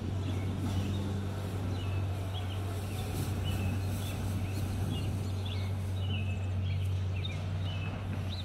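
Small birds chirping in short, repeated calls over a steady low hum.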